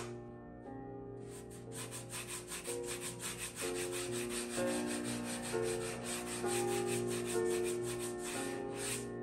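Hand sanding of hardened excess resin and foam on a surfboard nose repair, in quick rhythmic back-and-forth strokes that start about a second and a half in. Gentle background music plays underneath.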